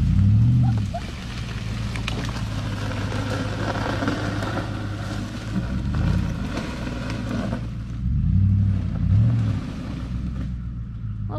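2006 Nissan Armada's 5.6-litre V8 engine working under load as the SUV drags a fallen log with a tow strap, revving up in several surges: just after the start, about six seconds in, and twice around eight to nine seconds.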